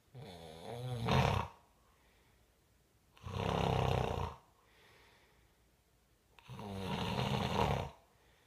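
Snoring: three long snores about three seconds apart, the first with a wavering pitch.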